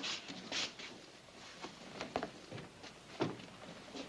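Several soft knocks at irregular intervals over a quiet background.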